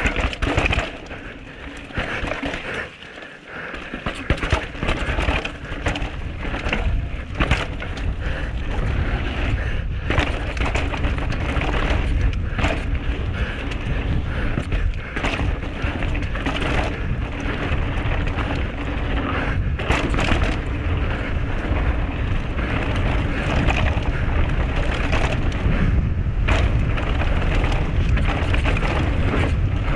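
Canyon Sender CFR downhill mountain bike riding fast down a dry dirt trail: a continuous rumble of knobby tyres on the ground, with wind buffeting the microphone and many sharp knocks and clatters as the bike hits bumps, roots and rocks.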